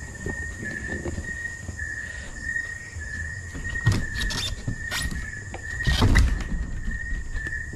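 Wooden door with a metal latch worked and pushed by hand: a few knocks and scrapes about four to five seconds in, then a louder bump and scrape near six seconds. Insects chirp steadily throughout in a regular pulsing rhythm.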